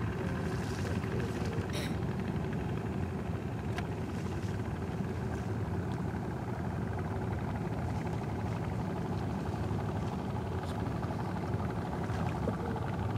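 A boat engine running steadily: a low, even rumble with faint steady tones in it, and a couple of brief clicks about two and four seconds in.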